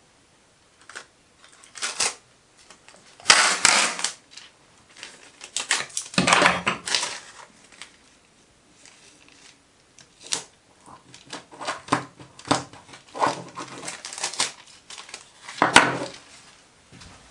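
Clear adhesive tape being pulled off the roll in several rasping stretches and pressed onto a steel parallel, crackling as it is handled, with a few sharp clicks.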